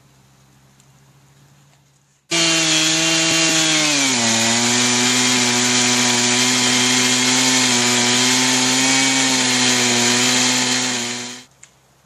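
Large Stihl two-stroke chainsaw in an Alaskan chainsaw mill, running at full throttle as it rips along a Douglas fir log. It comes in abruptly about two seconds in, its pitch sags over the next two seconds as the chain bites and the engine comes under load, then it holds a steady note until it cuts off shortly before the end.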